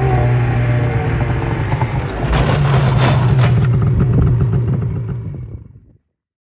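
Polaris Assault 800 snowmobile's two-stroke engine running as the sled comes down the loading ramp off a pickup's sled deck, eased off briefly about two seconds in and then given throttle again, with some clatter. The sound fades out near the end.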